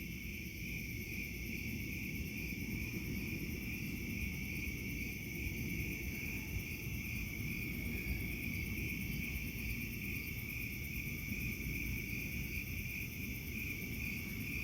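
Steady chorus of summer insects, a continuous high trill, over a low rumble.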